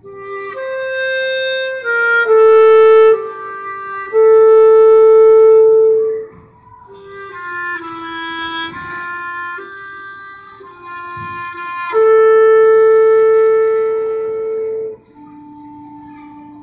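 Solo clarinet playing a slow melody, with several long held notes. The loudest held note breaks off about fifteen seconds in and a softer, lower note follows.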